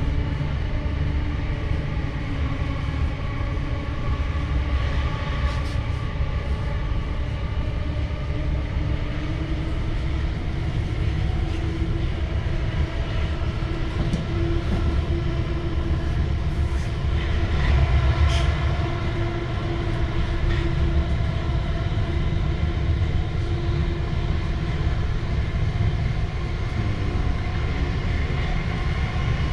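Electric passenger train running along the line: a steady low rumble of wheels on track with a steady multi-tone motor hum. A few faint clicks of the wheels come around the middle.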